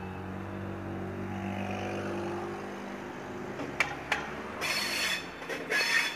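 SBB electric passenger train coming in over the points: a steady low hum that sweeps in pitch, then two sharp clacks of the wheels a little before four seconds in, followed by two bursts of harsh, hissing wheel-and-rail noise, the loudest part.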